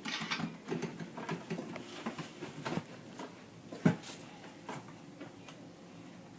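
Light, irregular clicks and taps of ceiling fan parts being handled and fitted during assembly, with one sharper knock about four seconds in.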